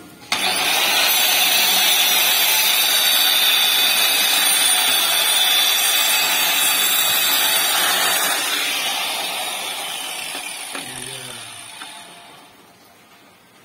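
Handheld electric tile cutter with an abrasive disc cutting through a ceramic tile. It starts suddenly, runs steadily for about eight seconds, then winds down gradually.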